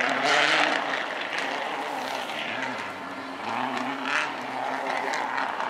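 A Subaru Impreza WRC rally car's turbocharged flat-four engine being revved hard. Its note falls away about halfway through and then climbs again, with short sharper bursts about half a second in and again about four seconds in.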